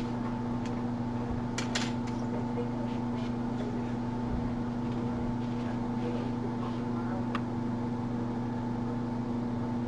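Steady mechanical hum. Over it, a few faint clicks of lock picks working the sliders of an OnGuard U-lock: a couple close together about two seconds in, and one more near the end.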